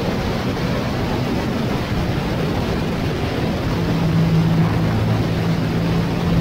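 Motorcycle riding at road speed, heard from onboard: a steady rush of wind and road noise over a low engine hum. The engine hum grows stronger about four seconds in, as the bike comes through a curve.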